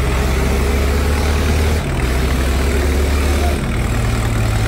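Diesel tractor engines running hard, a loud low drone with a fast pulsing beat that shifts in pitch about two seconds in and again near the end.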